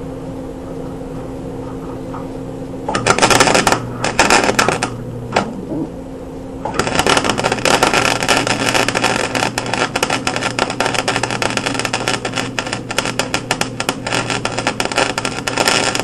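Stick (arc) welder striking an arc about three seconds in, sputtering and breaking off a few times, then running a steady crackling tack weld from about seven seconds on, over a steady hum.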